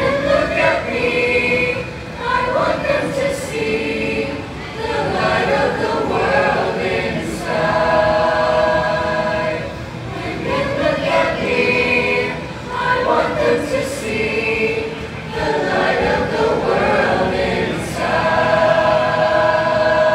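Mixed choir of women's and men's voices singing in parts, phrase after phrase, settling on a long held chord about eight seconds in and again near the end.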